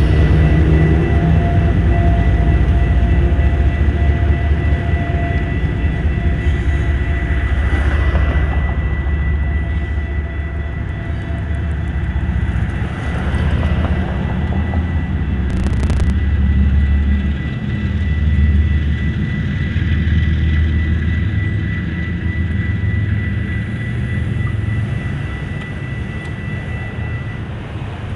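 Union Pacific diesel locomotives pulling a loaded rock train away through a grade crossing: a steady low rumble of engines and rolling cars that fades gradually, with a thin steady high tone that stops near the end.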